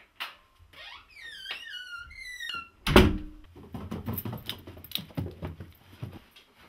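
A wooden interior door creaking, a high squeak sliding down in pitch several times, then a loud thump about three seconds in, followed by softer knocks and shuffling.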